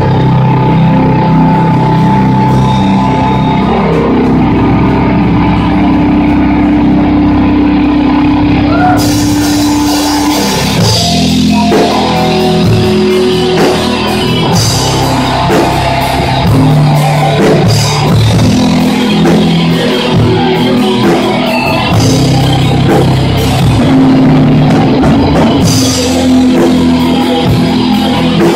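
A live heavy metal band playing loud: distorted electric guitars, bass and drum kit, with cymbals crashing in about nine seconds in.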